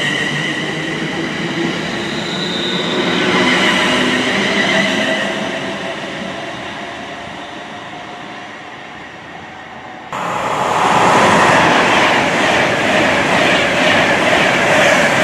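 A London Northwestern Class 350 Desiro electric multiple unit moves away along the platform, its traction motors whining in several tones that swell and then fade. About ten seconds in, the sound switches abruptly to the louder rush of wheels on rail as an Avanti West Coast Class 390 Pendolino passes through at speed.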